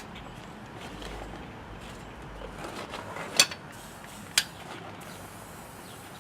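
Two sharp clicks or knocks about a second apart, over low steady background noise.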